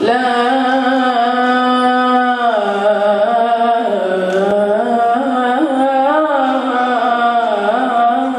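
A boy singing a nasheed solo, unaccompanied, holding long notes and decorating them with melismatic turns.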